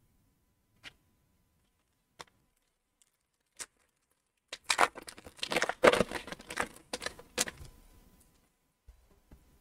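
A few light clicks of trading cards being set down, then, about four and a half seconds in, the foil wrapper of an Upper Deck Series One hockey card pack crinkling and tearing as it is opened, for about three seconds.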